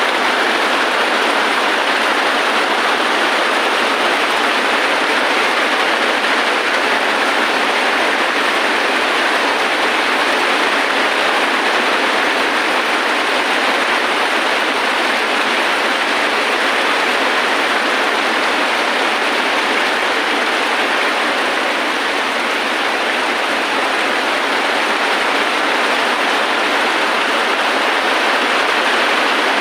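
Heavy rain falling steadily: a dense, even hiss with no thunder or other breaks.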